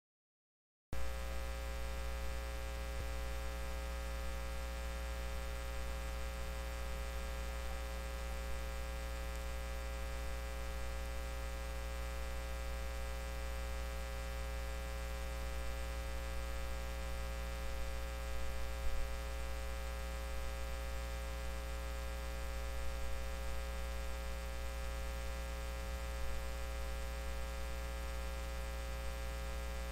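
Steady electrical hum that cuts in abruptly about a second in after digital silence: a deep low drone with many steady higher tones stacked over it, unchanging throughout.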